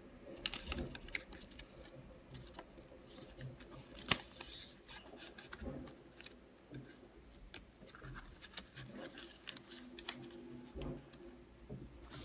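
Cardstock rustling and light clicks as fingers fold a paper flower closure shut and wind its elastic cord around the centre button. One sharper click comes about four seconds in.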